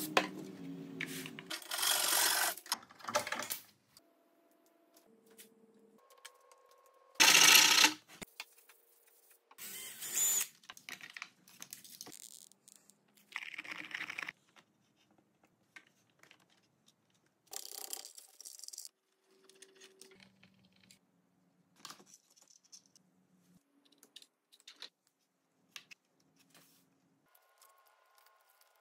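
A run of separate workshop hand-work sounds on a wooden model boat hull: about five short bursts of hissing or rasping, each a second or two long, the first about two seconds in from an aerosol spray can and the loudest about seven seconds in, with soft taps and clicks of handled parts between them.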